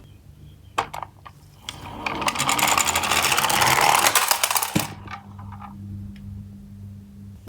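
Die-cast toy garbage truck rolling down a slope: a few light clicks as it is set down, then the rattle of its small wheels building over about three seconds, ending in a sharp knock.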